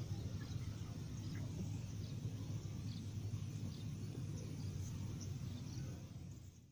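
Rice-field outdoor ambience: a steady low rumble with faint, short high chirps of birds or insects scattered through. It fades out near the end.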